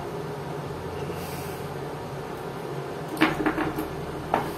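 A few quick clicks and knocks from small objects being handled on a desk: a cluster about three seconds in and one more near the end. They come as a small box is picked up beside the soldering iron. A steady low hum runs underneath.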